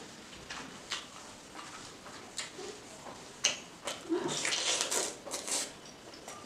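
Close-up eating sounds: wet chewing and lip smacks as a mouthful of pork and rice is eaten, with scattered single smacks and a denser spell of chewing about four seconds in.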